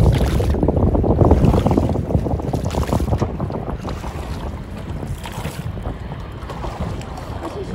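Wind buffeting the microphone: a dense, fluttering low rumble that eases off gradually.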